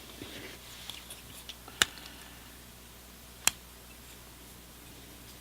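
Folding multi-tool being handled: two sharp clicks about a second and a half apart as its stainless steel parts are folded and opened, with faint small handling clicks between them.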